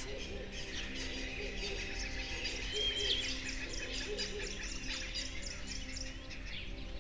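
Songbirds chirping and whistling in a busy chorus of short, high notes, over soft, steady low background tones.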